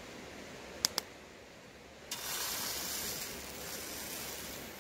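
Two quick clicks, then about two seconds in a steady hiss starts abruptly: chapati batter sizzling in a hot pan on a wood-burning hobo stove.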